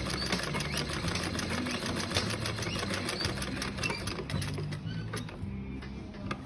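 Sewing machine stitching at speed, a rapid even clatter of the needle mechanism over a low motor hum, as a zipper is sewn onto fabric. The stitching slows and stops about five seconds in.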